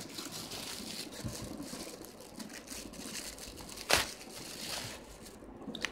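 Clear plastic packaging crinkling as it is handled and pulled open, with one sharp snap about four seconds in.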